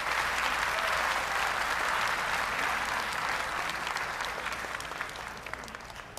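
Arena audience applauding, loudest in the first few seconds and fading away over the last two.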